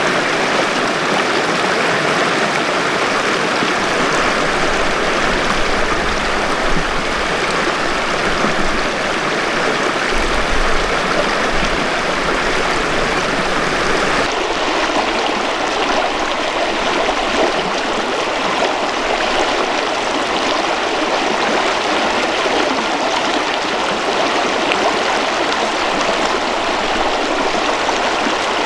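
Snow-fed mountain river flowing, a steady rush of water. Its tone changes slightly about halfway through.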